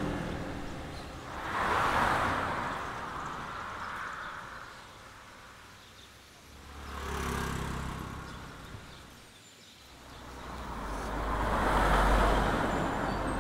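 Road traffic passing close by: three vehicles go past one after another, each swelling and fading away. The last, near the end, is a truck with a low engine rumble.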